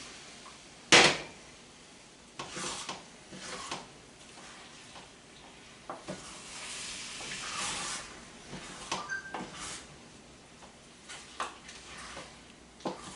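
Kitchen cookware handling: a sharp knock about a second in, then scattered lighter knocks and clatters of pot and utensils, with soft noisy stretches between.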